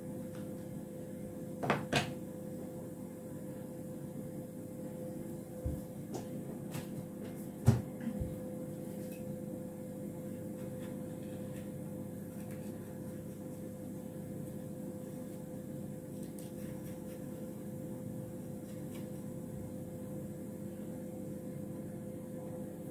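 A steady kitchen appliance hum, with a few sharp knocks of a kitchen knife on a wooden chopping board as a pepper is sliced; the loudest knock comes about eight seconds in.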